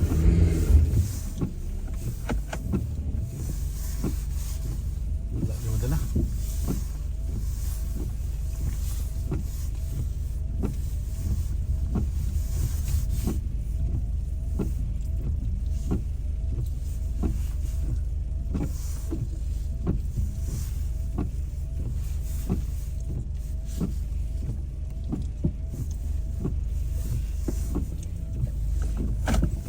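Car on the move: a steady low road and engine rumble, with a regular short tick and faint squeak repeating about three times every two seconds.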